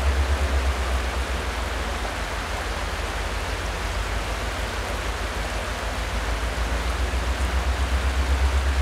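Creek water running steadily over rocks, with a louder low rumble underneath that pulses a few times a second and eases off in the middle before building again near the end.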